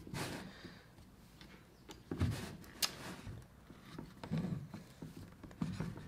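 A trim router, switched off, being handled against a wooden routing jig: scattered soft knocks and scrapes, a dull thump about two seconds in and a sharp click just before three seconds.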